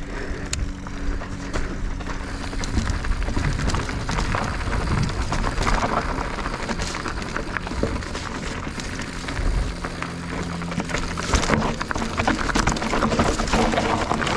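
Mountain bike riding over rocky single track: tyres rolling over rock and the bike rattling, with many small knocks and clicks.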